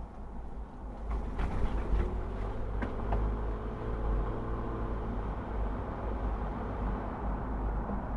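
Car driving, a steady low rumble of engine and road noise, with a few light clicks or knocks between about one and three seconds in.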